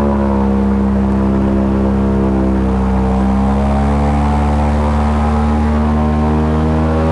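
Airboat engine and propeller running steadily, with an even pitch that sags a little about three seconds in and climbs back up.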